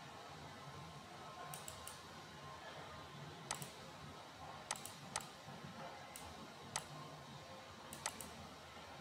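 Computer mouse clicking: about ten short, sharp clicks spaced unevenly, a quick cluster of three and some pairs among them, over a faint steady hiss.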